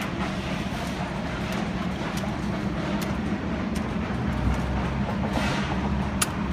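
Steady outdoor traffic rumble with a low hum, broken by a few faint sharp clicks, the sharpest about six seconds in.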